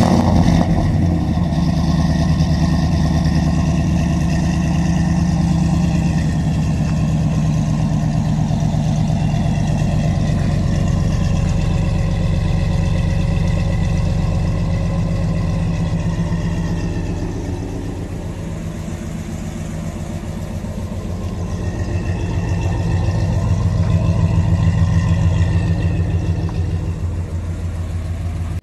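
Ram 1500's 5.7-litre Hemi V8, fitted with a new Greene Racing camshaft, just after firing up: the start-up flare settles into a steady idle through the dual exhaust. The cam was chosen to avoid a choppy idle.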